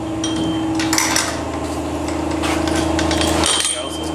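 A few sharp metallic clinks and taps, some ringing briefly, over a steady mechanical hum.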